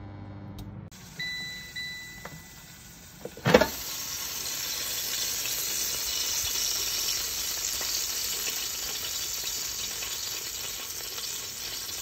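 A Philips air fryer beeps, and about three and a half seconds in a loud clunk comes as its basket is pulled out. Then the freshly cooked chicken thighs sizzle steadily on the basket's wire rack.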